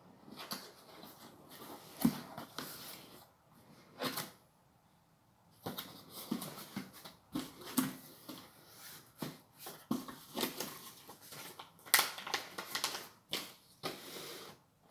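Cardboard box and packaging being handled and opened: irregular rustling and scraping with scattered sharp knocks.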